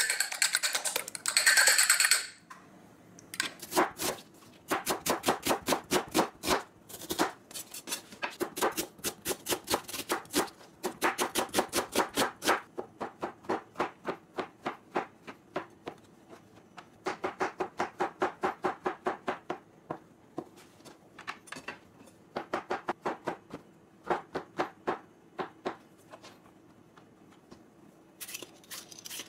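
A spoon beating eggs in a ceramic bowl for about two seconds, then a chef's knife slicing shiitake mushrooms on a cutting board in quick runs of strokes, about five a second, with short pauses between runs. Near the end a softer scraping starts as a carrot is peeled.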